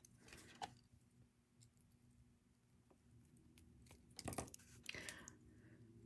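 Near silence with faint handling clicks as beads and wire are worked by hand, and a couple of slightly louder small clicks about four and five seconds in, over a faint low hum.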